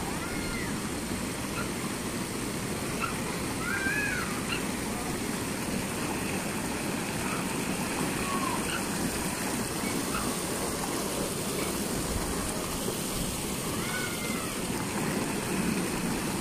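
Steady rushing and splashing of water pouring from a pool's spray rails into the water, with short high-pitched chirping calls now and then.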